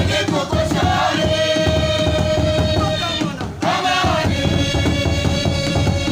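Mganda dance music: voices chanting over drumming, holding a long note from about a second in and another in the last second and a half.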